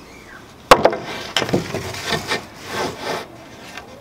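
A wooden plank knocked down onto a panel of pine boards about a second in, then slid and rubbed across the wood surface in several scraping strokes.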